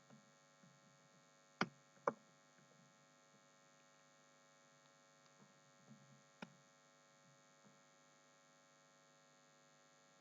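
Near silence with a faint steady electrical hum, broken by a few short soft clicks: two close together about a second and a half in, and one more about six seconds in.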